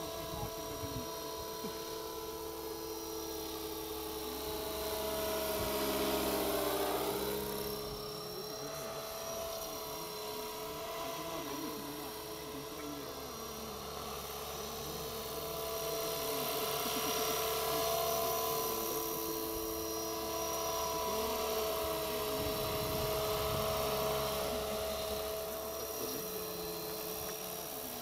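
Align T-Rex 500 electric RC helicopter flying: a steady high whine of motor and gears over rotor noise. The pitch dips as it passes close about six or seven seconds in, and the sound grows louder again later on.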